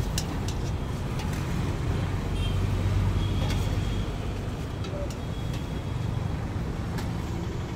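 Steady low rumble of passing road traffic, with a few sharp clinks of a steel serving spoon against steel pots as curry is ladled onto a plate.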